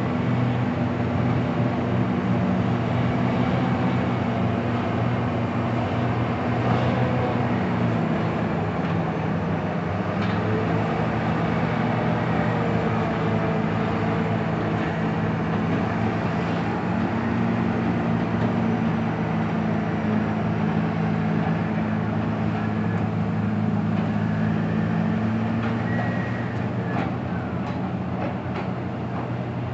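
Large mining haul truck's diesel engine running as it drives past at low speed: a steady drone whose pitch shifts a couple of times, easing off slightly near the end as it moves away.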